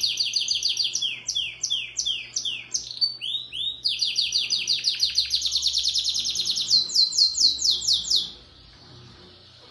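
Belgian-type domestic canary singing in long trills of rapid, down-slurred whistled notes, about ten a second. The phrase changes every second or two, turns to slower, louder, higher notes near the end, and the song stops suddenly about eight seconds in.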